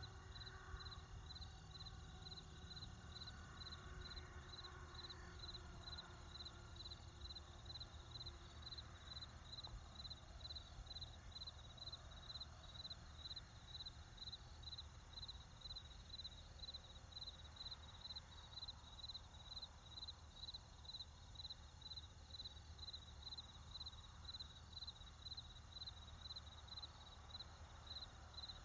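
Crickets chirping steadily, high-pitched, about two chirps a second, over a faint low rumble of distant traffic.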